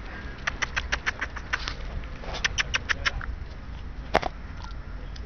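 Quick runs of light clicks, about seven a second, from a small dog trotting on a leash across asphalt. A single sharper click comes about four seconds in.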